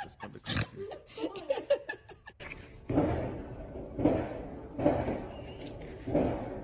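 A woman laughing, then a cat giving four short meows about a second apart.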